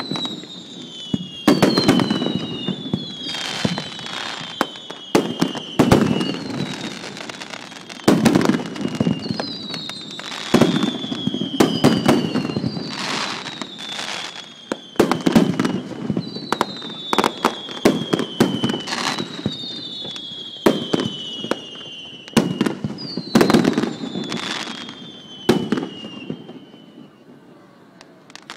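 Rapid-fire No. 2 aerial firework shells going off in quick succession: one whistling shell after another, each whistle falling in pitch, among sharp bursting bangs and duller thuds every second or two. The barrage dies away near the end.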